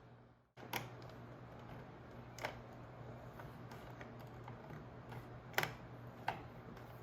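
A few sharp, separate clicks and taps of a screwdriver and a plastic toy casing being handled while screws are taken out, over a steady low hum. The sound cuts out briefly at the very start.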